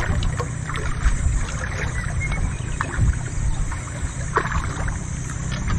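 Steady low noise of a small outrigger boat sitting at sea, mostly wind and water against the hull, with a few light knocks.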